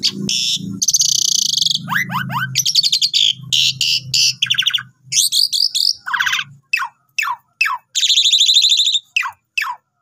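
Asian pied starling singing a long, varied song: harsh buzzy chatter and rattles mixed with many short falling whistles. There is a low rumble under it for the first six seconds, after which the calls come as separate falling notes with one long buzzy phrase near the end.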